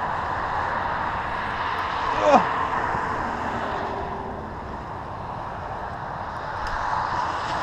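Suzuki DR200's air-cooled single-cylinder engine running as the dual-sport bike rides slowly through wet snow, heard as a steady drone mixed with a rushing haze.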